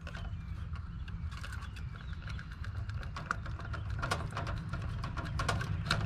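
Irregular clicks and rattles of a heat pump's defrost control board and its wires being handled in the outdoor unit's control panel, growing busier about a second and a half in, over a low steady hum.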